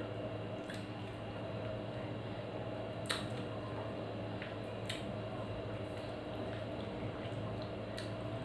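Wet, squishy mouth sounds of someone sucking and biting the pulp of a ripe mango, with a few short sharp clicks, over a steady low hum.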